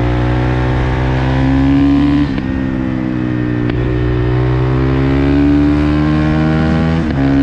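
2019 Honda CRF450L's single-cylinder four-stroke engine through a Yoshimura RS4 full exhaust, under way on the road. The revs climb steadily, break sharply about two seconds in and again near the middle, then pull up once more, with a constant rush of wind noise.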